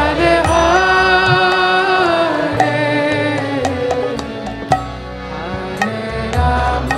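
Devotional kirtan music: a sung mantra chant with drawn-out, gliding melodic lines over a hand drum, with sharp percussive strikes scattered through. The singing is fullest in the first few seconds and eases off in the second half.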